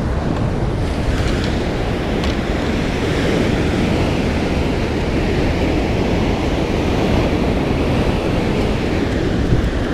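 Sea waves breaking and washing over shoreline rocks, with wind rushing over the microphone: a steady, unbroken roar of surf.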